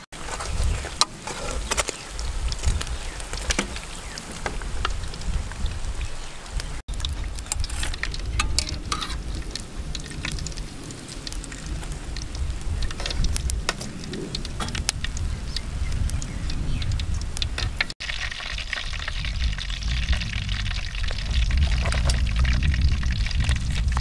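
Hot oil sizzling in a large wok as a shrimp fritter deep-fries, with many small pops and the clink of metal utensils against the pan and strainer. Wind rumbles on the microphone underneath.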